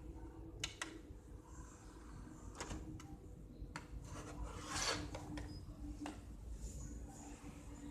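Faint scattered clicks and a brief rubbing rasp about five seconds in, over a low steady hum.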